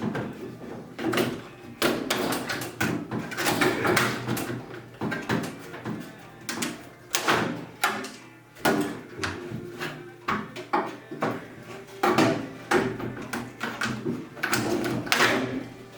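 A microwave oven's housing being pulled apart by hand: a run of irregular knocks, clatters and scraping of the panels and parts.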